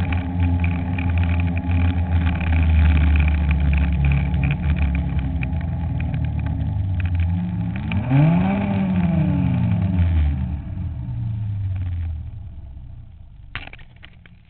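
Ski-Doo snowmobile engine running hard through powder snow. About eight seconds in its pitch rises sharply and falls back, then the engine note drops away and fades, with a few knocks near the end.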